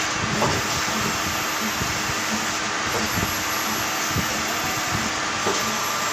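Lathe running steadily while machining a ring: a continuous whirring hum with a steady whine and a faint pulse about one and a half times a second.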